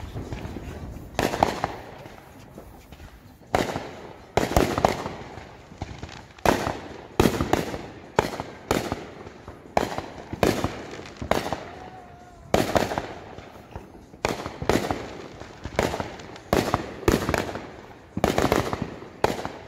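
Aerial fireworks bursting: about twenty sharp bangs at roughly one a second, some in quick pairs, each trailing off in an echo.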